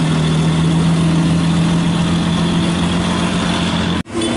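Truck engine idling steadily, with a brief break in the sound about four seconds in.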